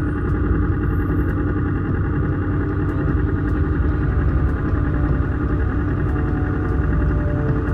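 Motor vehicle running steadily, a continuous engine and road noise with a low hum.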